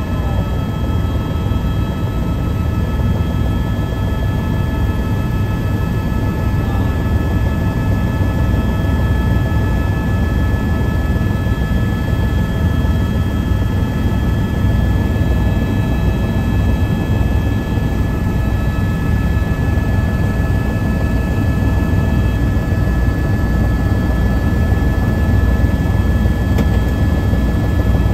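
Helicopter in steady cruising flight heard from inside the cabin: a constant low rotor and engine drone with a steady high turbine whine over it.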